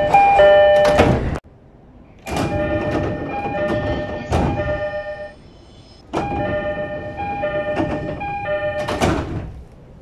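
Door chime of an E231 series 1000-number commuter train (set K-23), a two-note chime played over and over in quick succession, sounding in three runs with short gaps between them. This set's chime differs from the usual E231 door chime.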